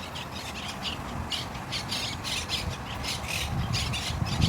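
A flock of green parakeets squawking: many short, harsh calls in quick succession. A low rumble comes in near the end.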